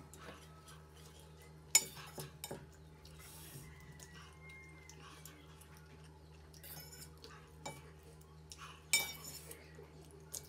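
A metal fork clinks against a stainless steel bowl as noodles are lifted out. There are a few sharp clinks, the loudest about two seconds in and another about nine seconds in.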